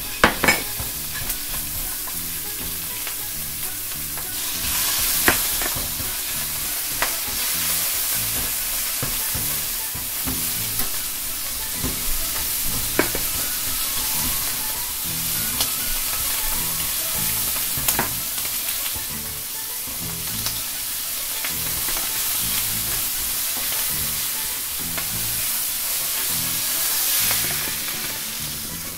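Shrimp, squid rings and bacon sizzling in oil and minced garlic in a nonstick frying pan, stirred with a spatula that now and then taps sharply against the pan. The sizzle dies down near the end as the pan is lifted off the gas flame.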